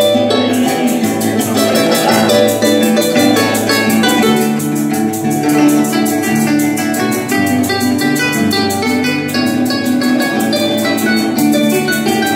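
Llanero joropo ensemble playing instrumentally: llanero harp and cuatro plucking a fast tune over a steady, even maraca rhythm.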